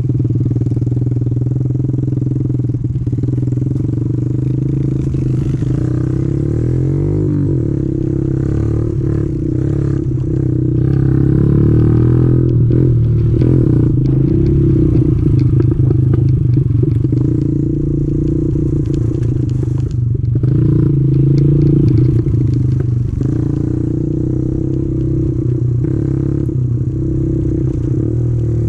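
Small pit bike engine running under steady throttle on a dirt trail ride, its note wavering slightly and growing louder twice as the throttle opens.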